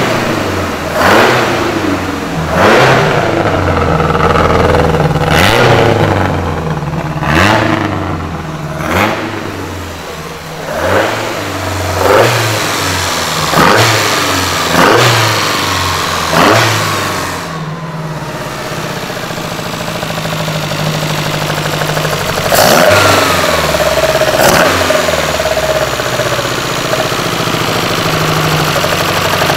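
Freshly rebuilt Lancia Fulvia 1600 narrow-angle V4 running just after its first start. Its throttle is blipped by hand at the carburettor linkage about every second and a half for some seventeen seconds. It then settles to a steady idle, with two more blips near the end.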